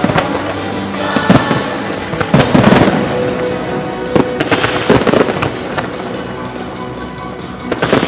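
Fireworks display: several loud bangs of bursting shells with crackle, over a musical soundtrack with sustained tones.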